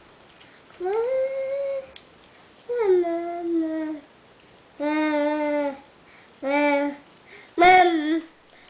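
A young child making a series of five drawn-out, pitched vocal noises, each about a second or less, with short pauses between. The second call falls in pitch, and the last, loudest one wavers.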